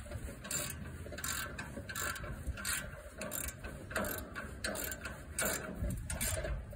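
Socket ratchet wrench clicking stroke after stroke, about twice a second, as a bolt is tightened down. Wind rumbles on the microphone near the end.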